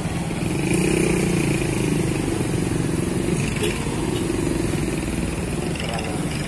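A large diesel coach engine idling steadily, with street traffic around it.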